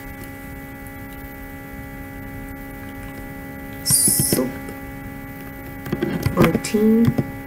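Steady electrical mains hum with several held tones under the recording. A short loud hiss comes about four seconds in, and a brief murmur near the end.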